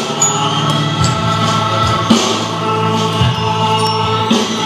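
Electronic music from an interactive light-and-sound installation, set off from its touchscreen: sustained chords that change about once a second, with short high pinging notes above them.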